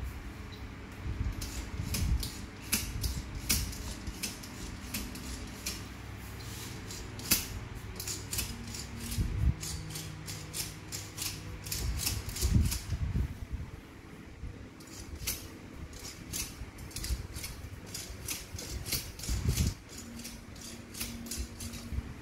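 Suspension of a homemade RC truck chassis worked by hand: quick runs of clicks and creaks from the aluminium frame, swing arms and coil-over shock absorbers, with a few dull knocks.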